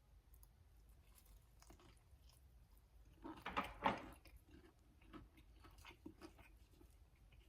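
Close-up chewing and biting on a fried chicken strip: soft wet mouth clicks throughout, with a louder burst of mouth noise about halfway through.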